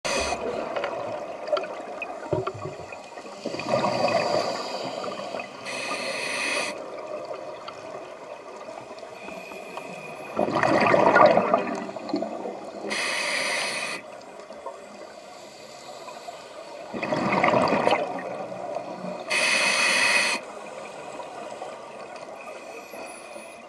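Scuba regulator breathing underwater, three full breaths: each a rumbling burble of exhaled bubbles followed a couple of seconds later by the hiss of an inhale through the demand valve.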